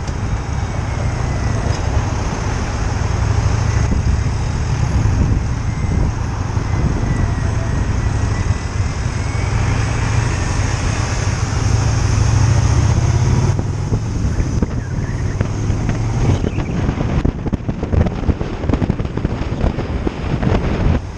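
Motorcycle engine droning at cruising speed with wind buffeting the microphone. About sixteen seconds in, the engine's low drone drops away and the gusty wind noise takes over.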